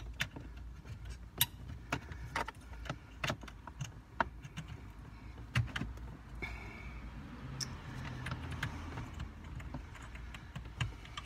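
Irregular clicks and light rattling of plastic wiring-harness connectors and cables being handled and plugged into a car's HMI module behind the dash.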